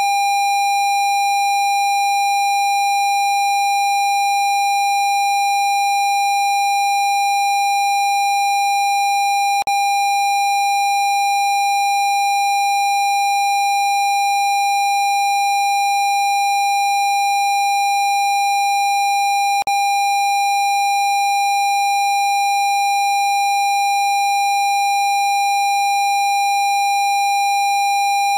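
A steady electronic pure tone at 802 Hz, unchanging in pitch and level, with a faint click at about ten seconds and again at about twenty.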